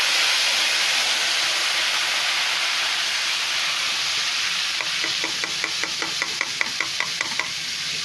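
Spiced water poured into hot oil in a karahi, hissing and sizzling loudly as it hits the oil and turns to steam, the hiss slowly easing. About five seconds in comes a quick run of light clicks, about five a second, for a couple of seconds.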